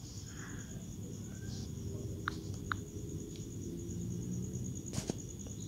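Quiet background with a steady, high, finely pulsing insect trill over a low hum. There are two faint ticks a little after two seconds in and a sharper click about five seconds in.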